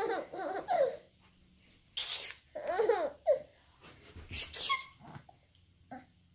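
A baby laughing in short, high-pitched bursts. About two seconds in a woman sneezes, and the baby breaks into laughter again right after.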